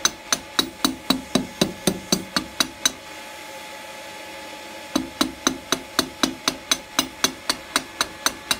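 Hand hammer striking a red-hot steel bar on the anvil horn in a steady rhythm of about four blows a second, with a pause of about two seconds in the middle. A steady hum runs underneath.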